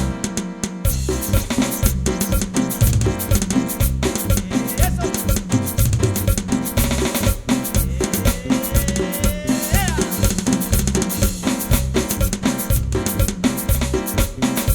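Instrumental intro of a cumbia played by a small band: a drum kit keeps a steady beat on snare, rimshot and bass drum under electric bass and keyboard. A few sliding keyboard notes come about two-thirds of the way in.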